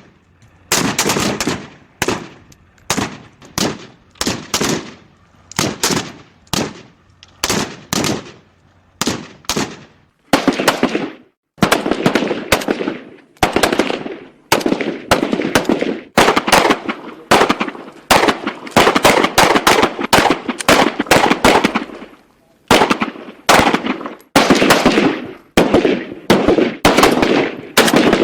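AK-47 rifle firing: single shots about one or two a second for the first ten seconds or so, then bursts of automatic fire with short pauses between them.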